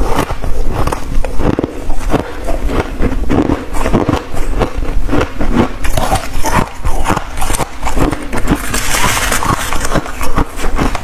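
Close-miked crunching as a mouthful of freezer frost is chewed: a dense run of crisp crackles and crunches. Near the end a metal spoon scrapes through the frost in the tray, scooping up more.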